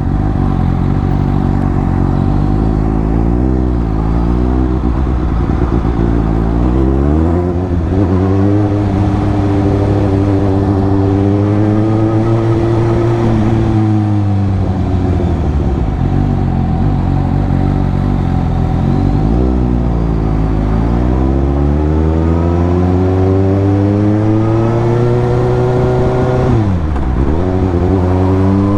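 Suzuki GSX-S750's inline-four engine and exhaust while riding, the revs climbing and easing off several times. Near the end the revs drop sharply and then climb again quickly.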